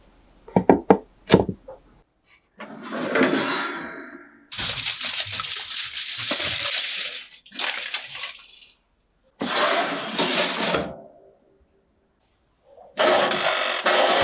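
A metal baking tray clinks a few times, then aluminium foil crinkles and crackles in several spells as it is laid over the tray inside a toaster oven. Near the end the toaster's mechanical timer dial is turned, starting a steady grinding whirr.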